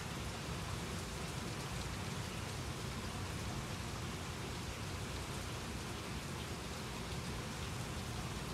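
Steady rain falling, with a few faint drip ticks scattered through it.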